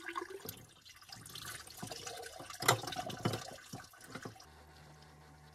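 Water splashing and dripping with irregular knocks and clatter, one knock louder than the rest near the middle. About four and a half seconds in it cuts off, leaving a low steady hum.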